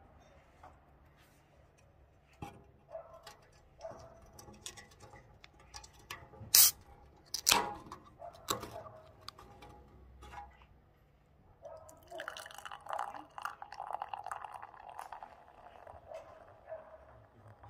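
An aluminium beer can of Kozel Dark is handled with small clicks. Its ring-pull tab snaps open sharply about six and a half seconds in, with another loud click a second later. From about twelve seconds in, beer pours from the can into a glass, splashing and gurgling until near the end.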